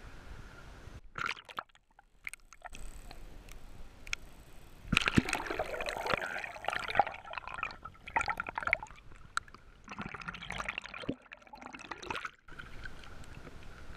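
Bottlenose dolphins clicking, heard through a camera held underwater, among gurgling and sloshing water. The sound turns muffled about a second in when the camera goes under, and changes back near the end when it breaks the surface.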